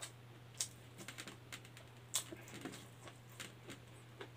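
Close-miked eating sounds from a man chewing rice and dried fish by hand: a dozen or so sharp, irregular wet clicks and mouth smacks, over a steady low hum.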